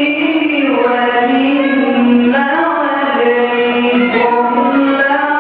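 A man's voice in melodic religious chanting, with long held notes that slide slowly up and down in pitch.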